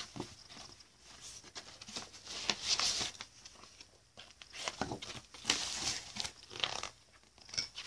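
Packaging and paper rustling and crinkling in irregular bursts as items in a box are rummaged through by hand.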